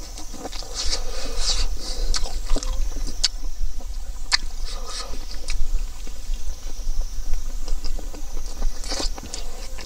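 Close-up eating sounds: wet chewing and lip-smacking of pork ribs and rice, with many sharp mouth clicks, and fingers squishing rice and meat on the plate.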